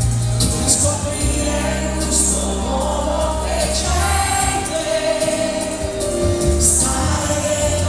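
Live pop song: a male singer singing through a PA microphone over a band accompaniment with sustained bass notes and cymbals.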